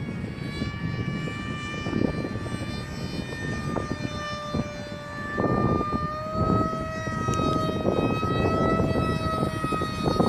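Electric motor and propeller of an RC model Su-47 flying overhead: a steady whine that drifts slightly higher in pitch around the middle. The motor runs on a newly fitted speed controller (ESC) without cutting out. Gusts of wind buffet the microphone underneath.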